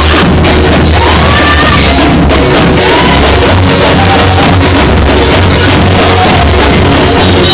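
Loud live church praise music, with a heavy bass, a steady drum beat and voices singing and shouting over it.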